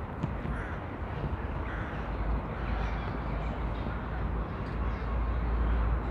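Outdoor park ambience: a steady low rumble that grows stronger after about two seconds, with crows cawing faintly now and then.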